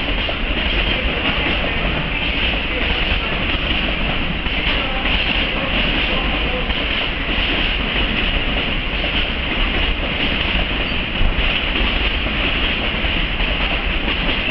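Freight train of container wagons rolling past on the rails, hauled by an EF65 electric locomotive: a steady noise of wheels on track.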